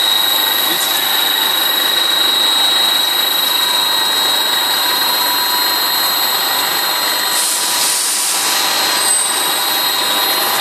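Sludge dewatering screw press and its drive running: a steady machine noise with a high, constant whine. A short burst of hissing comes about seven seconds in.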